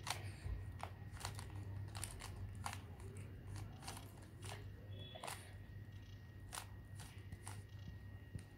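Plastic 3x3 Rubik's cube being twisted by hand, its layers clicking at an irregular pace of roughly two turns a second. A low steady hum runs underneath.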